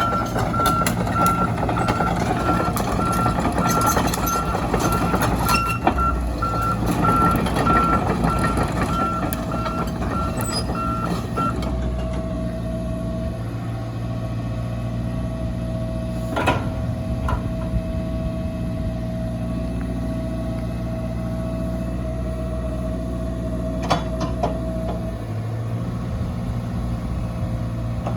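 Volvo EC140 excavator's diesel engine running, with its travel alarm beeping steadily for the first eleven seconds or so and then stopping while the engine carries on. A few sharp clanks come through the engine noise later on.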